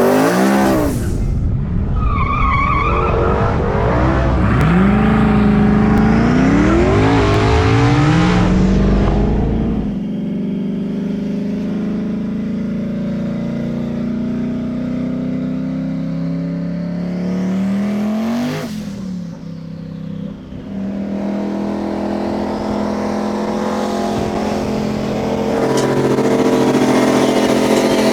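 Twin-turbo Coyote V8 Mustangs accelerating hard, engine pitch climbing steeply and dropping back at each gear change. After that they run at a steadier high-speed drone, with a brief dip and swell about two-thirds of the way through.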